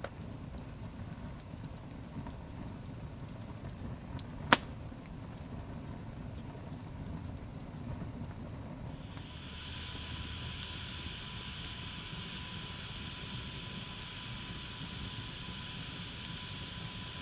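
Log campfire burning with a low steady rumble of flames and one sharp pop of wood about four and a half seconds in. After about nine seconds the sound changes to a steady hiss with a faint steady high tone.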